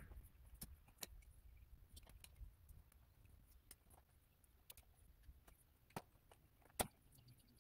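Faint scattered clicks and ticks of a plastic ECU wiring-harness connector and its loose wires being handled, with a sharper click near the end.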